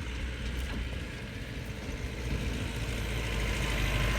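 Diesel engine of a Mahindra off-road vehicle running steadily, growing gradually louder.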